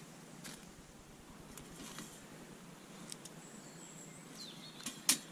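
Light metallic clicks and taps as a wire grill is handled and set on a small folding twig stove, the sharpest about five seconds in, over faint woodland background with a bird's thin high call near the middle.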